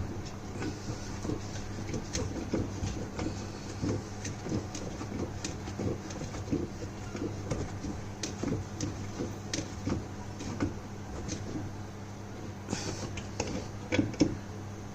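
Irregular light clicks and knocks of a 13 mm spanner working the bolt on a washing machine's gearbox pulley wheel, over a steady low hum.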